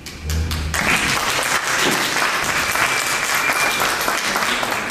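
Audience applauding: many hands clapping, building up about a second in and easing off near the end.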